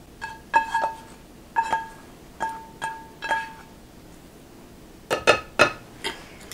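Spatula knocking and scraping against a stainless steel skillet as its contents are poured out, each knock making the pan ring briefly with the same metallic tone; about six knocks in the first three and a half seconds, then a pause and a few sharper clicks near the end.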